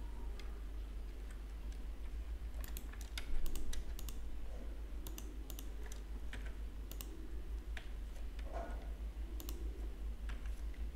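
Computer keyboard keystrokes and mouse button clicks, scattered and irregular, over a steady low electrical hum.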